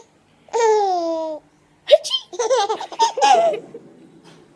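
Baby girl laughing: a long squeal falling in pitch about half a second in, then a string of short laughing bursts that stops about a second before the end.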